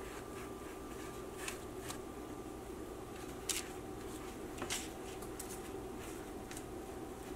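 Silicone pastry brush dabbing egg wash onto raw empanadas on a parchment-lined baking tray: soft brushing with a few light ticks and clicks, the loudest about halfway through, over a steady faint hum.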